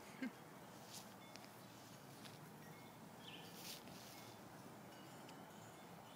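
Near silence: faint outdoor ambience with a few soft clicks and faint high chirps, and one brief louder blip just after the start.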